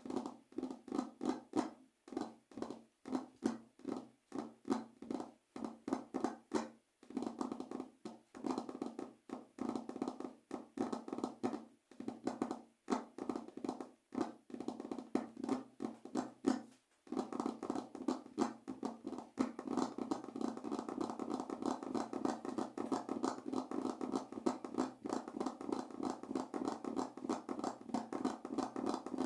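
Fingers tapping rhythmically on a surface, a quick patter of short taps. About halfway through the tapping turns faster and nearly continuous.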